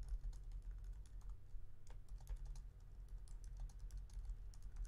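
Faint, rapid, irregular clicking of typing on a computer keyboard, over a steady low hum.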